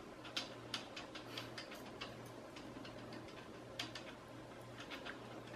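Faint, irregular small clicks and ticks, about two or three a second, over a low steady hum.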